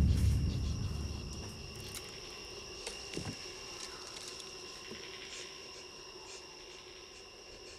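Night insects chirring steadily with a high, even drone, with a few faint ticks. A low rumble dies away over the first second or so.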